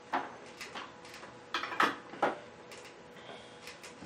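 A run of light knocks and clicks, the loudest in the middle, as a soldering iron and a small spool of solder are handled and set down on a workbench, over a faint steady hum.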